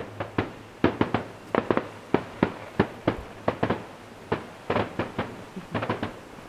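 Fireworks display going off in a rapid, irregular run of sharp bangs, two to four a second, some in quick pairs.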